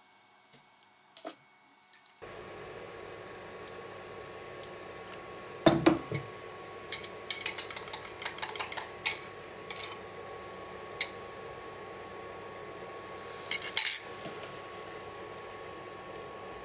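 A fork and utensils clink and knock against a glass bowl and a steel pan, loudest in a rapid run of clinks a few seconds in and again near the end. Under them a steady hum with a faint hiss starts about two seconds in.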